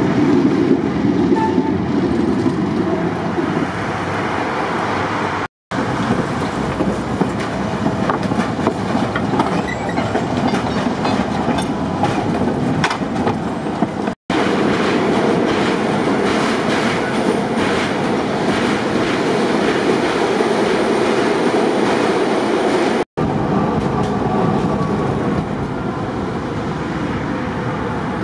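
Ganz articulated trams passing on street track: a steady rolling rumble of steel wheels on rail, with a run of clicks over the rail joints in the middle stretch. The sound breaks off abruptly three times where different passes are joined.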